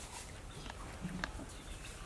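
Quiet outdoor background with a few short bird chirps.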